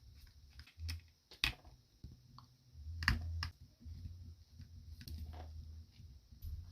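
Scattered light clicks and taps of small plastic parts and tools being handled while a small Bluetooth speaker is taken apart, over a faint low hum.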